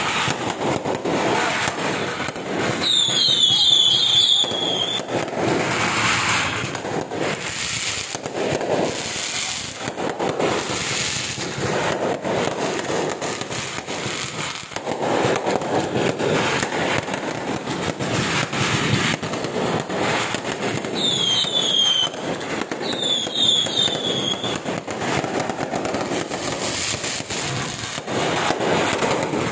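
Aerial fireworks bursting overhead in a dense, continuous barrage of bangs and crackling. High whistles fall in pitch about three seconds in and twice more past twenty seconds.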